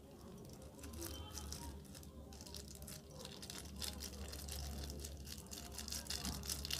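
Clear plastic piping bag crinkling and rustling as fingers pinch and work its tip, in an irregular stream of small crackles that grows busier in the second half.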